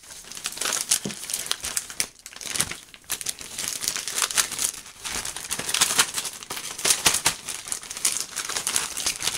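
Plastic zip-top bags crinkling as they are handled and folded around a syringe of solder paste, in dense irregular crackles throughout.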